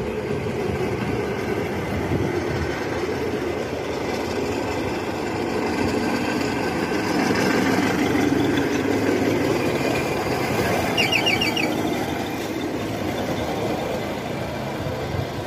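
Railway motor inspection trolley running along the track, its small engine and steel wheels on the rails making a steady noise that swells as it passes, then eases off. About eleven seconds in comes a quick run of high squeaks.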